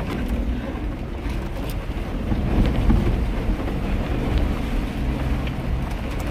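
Jeep Wrangler's engine running with road and wind noise, heard from inside the cabin while driving a rough dirt road, with a few light knocks.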